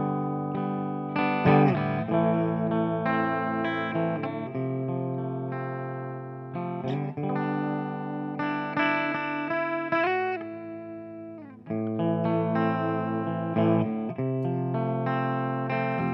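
Stanford Fleetwood CR electric guitar played through an amplifier: chords and notes struck and left to ring out and fade. About ten seconds in a note bends in pitch, and near twelve seconds the sound dies away briefly before a new chord is struck.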